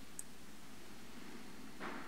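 Quiet indoor room tone with hiss and a faint steady hum. There is one tiny high click just after the start, and a brief soft rustle near the end.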